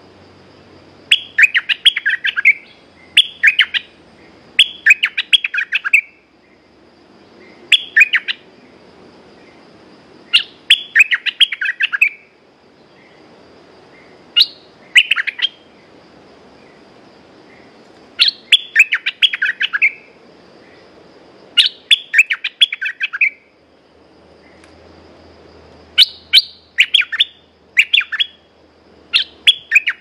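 Caged merbah lekir bulbul (Thai dok taeng) singing as a lure bird: about ten short phrases of quick, chattering notes, each a second or two long, with a few seconds' pause between them.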